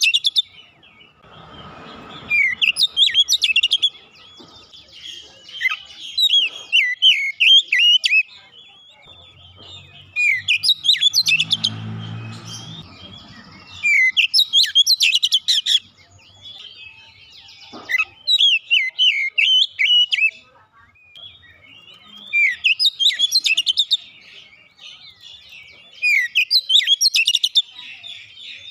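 Oriental magpie-robin (kacer) singing in loud bursts of fast, varied whistled phrases. Each burst of quickly rising and falling notes lasts two to three seconds, with short pauses between, about seven times.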